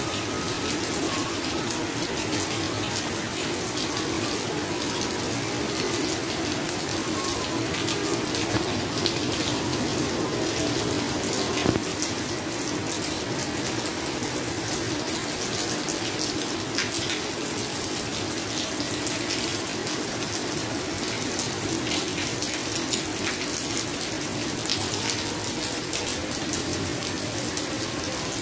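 Heavy rain pouring onto a tiled balcony floor and splashing into puddles: a steady, dense splashing hiss with scattered drop ticks and one sharper knock about twelve seconds in.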